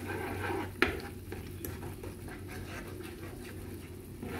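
A spoon stirring tomato sauce in a skillet, with a sharp knock about a second in, like the spoon striking the pan.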